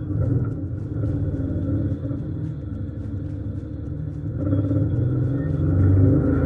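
Off-road vehicle engine running at low revs, then getting louder with the revs climbing from about four and a half seconds in.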